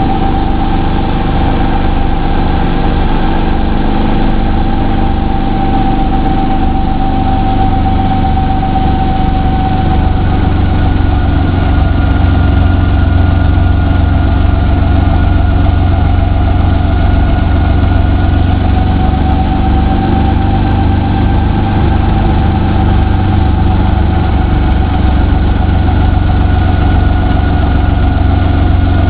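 Brantly piston helicopter's engine and rotor running on the ground after landing: a steady, loud engine drone under a fast, even beat of the rotor blades. A whine above it shifts in pitch about a third of the way in.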